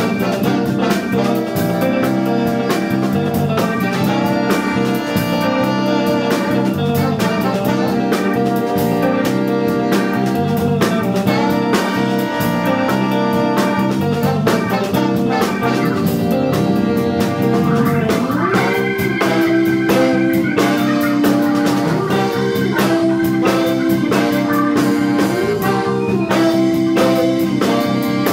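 Live horn-funk band playing a groove: tenor and alto saxophones and trombone over drum kit, electric bass, electric guitar and keyboards. About two-thirds through, a rising glide leads into long held notes.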